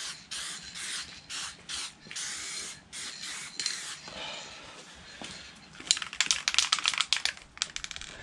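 Aerosol can of clear lacquer spraying in a series of short hissing bursts, laying down a thin tack coat. About six seconds in the spraying stops and the can is shaken, its mixing ball rattling quickly for a couple of seconds.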